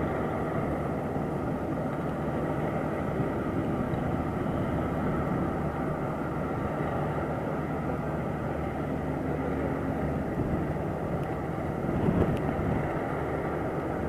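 Kubota DC-35 combine harvester running steadily under load as it cuts and threshes rice: engine and threshing machinery in one even mechanical noise.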